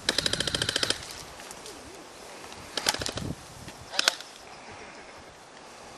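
Airsoft gun firing full-auto: a rapid burst of sharp shots lasting about a second, then two shorter bursts about three and four seconds in.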